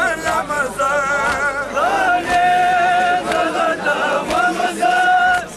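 Male voices chanting a Pashto noha, a mourning lament, in long held, wavering notes. The chant is punctuated by sharp slaps of chest-beating (matam).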